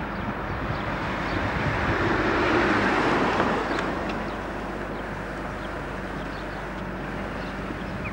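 Steady rushing noise of a car on the move, tyres and engine, swelling for a second or so about two seconds in before settling again.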